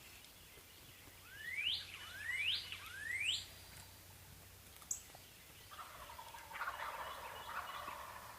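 A songbird whistles three quick rising notes, the loudest sounds here. About six seconds in, a wild turkey gobbles, a fainter rapid rolling burst lasting about two seconds.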